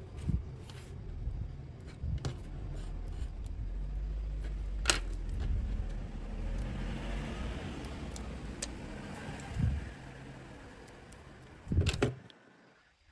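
Light clicks and taps of a plastic pry tool and a phone battery being handled on a wooden table, with two louder knocks near the end. Under them runs a low rumble that fades out over the last few seconds.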